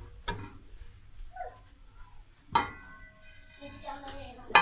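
Metal clinking against an aluminium cooking pot: two sharp strikes, each ringing briefly, about two and a half seconds in and near the end, with a fainter tap just after the start.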